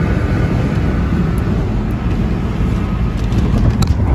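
Steady road and engine noise of a car moving at highway speed, heard from inside the cabin, with a few short sharp ticks near the end.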